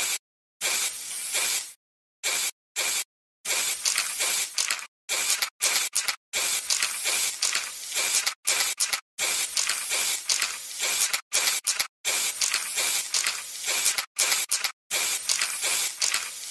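Harsh hissing noise, strongest high up, that cuts in and out abruptly many times, with short gaps of dead silence between the bursts.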